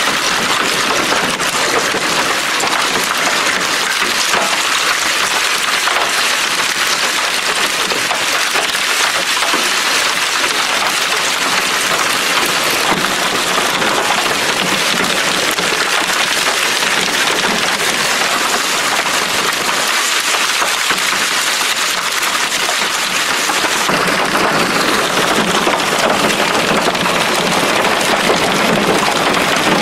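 Hail and rain pelting down hard, a dense, steady hiss of countless small hailstone impacts. About 24 seconds in it grows somewhat heavier and deeper.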